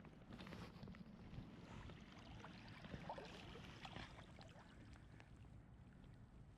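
Faint low rumble of flowing river water and wind on the microphone, with a few light clicks scattered through it.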